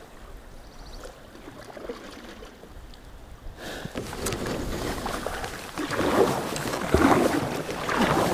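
Kayak paddle strokes splashing in the water, starting about a third of the way in and growing louder, with a surge of splashing roughly every second near the end.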